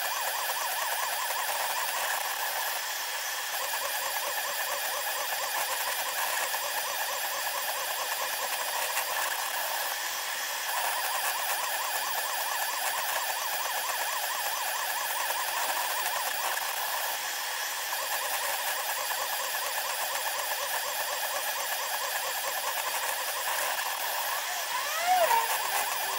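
SeeMeCNC Orion delta 3D printer running, its stepper motors and fan sped up ten times into a dense, high-pitched mechanical chatter with steady whining tones. Near the end a brief louder squeal rises and falls in pitch.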